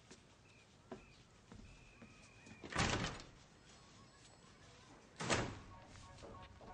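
Two muffled thuds about two and a half seconds apart, door-like, over quiet room tone, with a few faint high chirps before the first.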